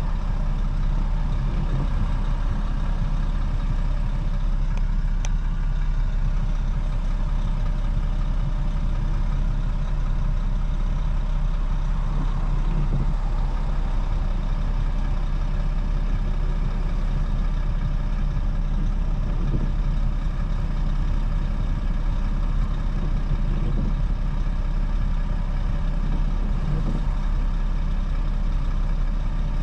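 BMW 435i's tuned N55 turbocharged inline-six running steadily, heard from inside the cabin, with no revving.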